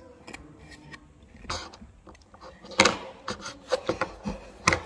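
Irregular plastic clicks and knocks as a transformer toy's limbs and body are moved and set down on a table, about eight sharp clicks in the latter half.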